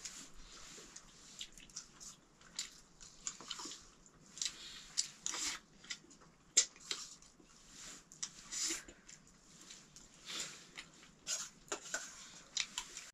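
Spoons clinking and scraping irregularly on steel plates while two people eat rice and curry, with soft chewing.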